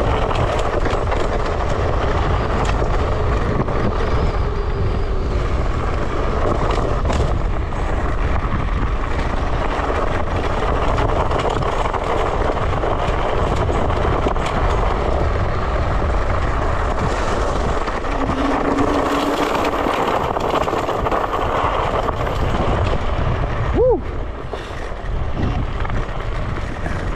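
Electric scooter ridden hard at speed: heavy wind buffeting on the microphone over steady tyre and road noise. A brief pitched squeak stands out near the end.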